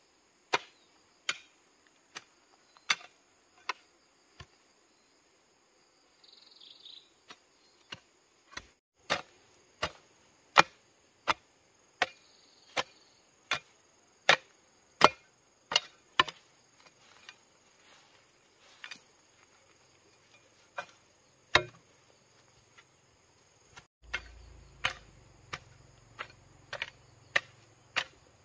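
Metal hoe blade chopping into dry, stony soil: sharp thuds, about one a second and quicker in the middle, with a short pause early on. Insects drone steadily at a high pitch underneath.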